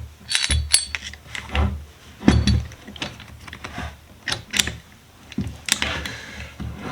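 Irregular light metallic clicks and scrapes of a small hand tool working a retaining ring loose on a small metal vise, a few of the clicks ringing briefly.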